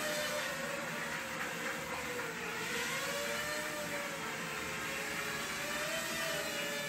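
Small quadcopter drone's electric motors and propellers whirring in flight, the pitch wavering up and down as the throttle changes.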